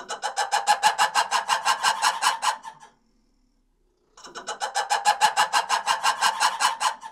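Lemur calls: two bouts of rapid, evenly repeated pulsed notes, about eight a second, each bout lasting nearly three seconds with a short silence between.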